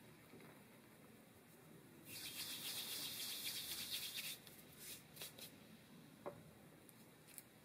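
A hand brushing and spreading flour across parchment paper gives a dry, hissing rustle for about two seconds. A few light taps and clicks follow.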